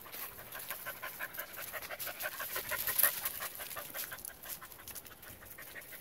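A dog panting quickly and rhythmically after running.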